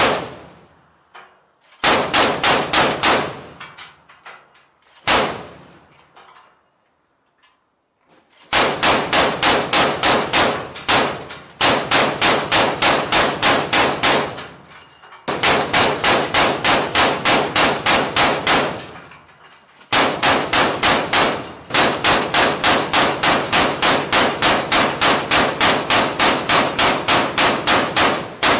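Ship-mounted remote-operated autocannon firing at sea, with a single shot at the start, another about five seconds in, and then bursts of rapid fire at about five rounds a second, the longest lasting several seconds near the end, each shot ringing out.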